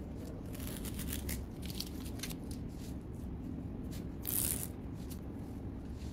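Masking tape being peeled off the edges of a painting on card and crumpled up: a run of short rustling, tearing sounds, the loudest a brief rustle about four seconds in, over a steady low hum.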